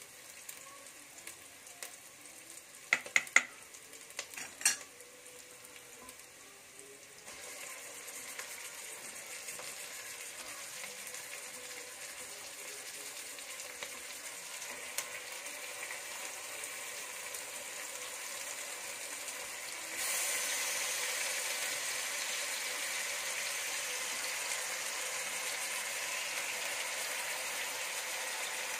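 Marinated mutton sizzling as it goes into onions and spices frying in oil in an aluminium pressure cooker. The frying starts quietly, with a few sharp clicks about three to five seconds in, then grows louder and steps up abruptly about two-thirds of the way through.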